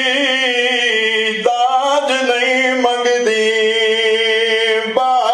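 A man's amplified voice singing a lament in drawn-out, wavering notes. He holds one long note, shifts through several short notes about a second and a half in, then holds another long note until near the end.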